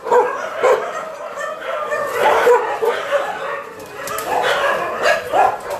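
Several dogs barking and yipping, many short overlapping barks in quick irregular succession.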